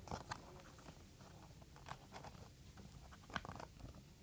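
Light rustling with scattered soft taps and clicks as a keyboard's box and packaging are handled and opened, with a short cluster of clicks about three seconds in.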